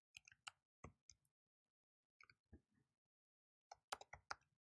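Faint computer keyboard keystrokes typing an address, about a dozen short clicks in irregular clusters with pauses between them.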